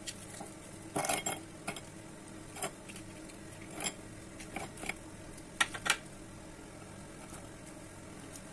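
Frozen aloe vera gel cubes being pushed out of a plastic ice cube tray and dropping into a small glass bowl: a scattering of clinks and knocks, loudest about a second in and twice just before six seconds, over a steady low hum.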